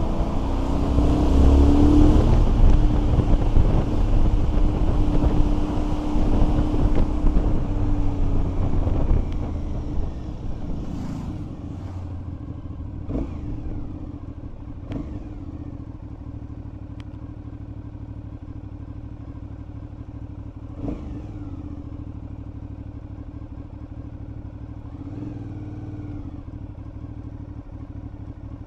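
Motorcycle engine running with heavy wind buffeting on the microphone. About ten seconds in it gets quieter, and the engine settles to a steady, low-speed running note.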